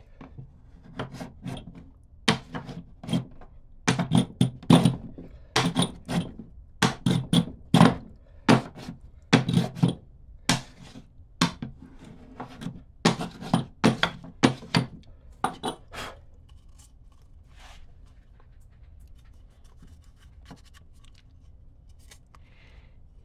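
A string of irregular wooden knocks and thunks from hand work on wood, often coming in quick pairs, for about sixteen seconds. Near the end they give way to faint scattered ticks.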